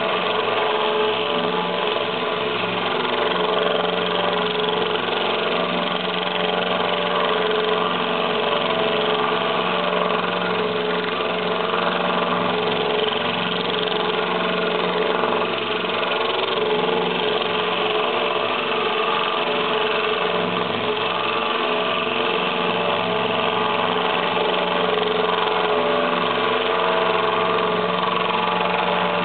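DeWalt cordless drill driver running steadily, turning a diamond hole saw that is grinding slowly through aquarium glass, with the drill's weight alone doing the work and the cut kept wet with water. Even motor whine with no change in speed.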